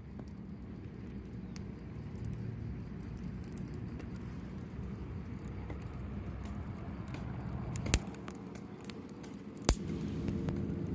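A steady low rumble with two sharp clicks, about eight seconds in and near the end.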